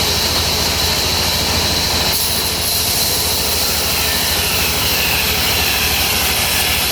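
Sawmill machinery running steadily: a low engine hum under a steady high whine and hiss.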